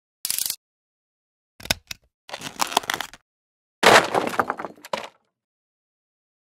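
Sound effects for an animated logo intro: a quick fluttering burst, a short low thump about two seconds in, then two longer noisy crackling bursts, the loudest near the fourth second, ending a little past five seconds in.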